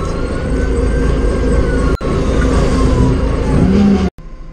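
A siren wailing in one slow rise and fall over a heavy low rumble, cut off abruptly about four seconds in.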